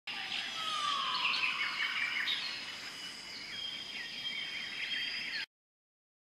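Woodland birds chirping and calling, with many short quick notes, over a steady high whine. It cuts off suddenly near the end.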